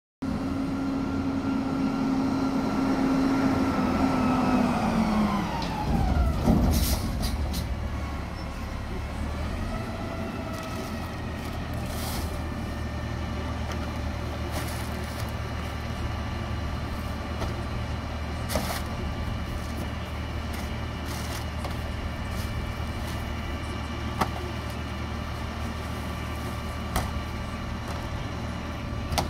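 Autocar ACX McNeilus front-loader garbage truck pulling up, its engine note falling as it slows, with a burst of air-brake hiss about six seconds in. It then idles steadily, with a few knocks and bangs as yard-waste carts are tipped into its carry can.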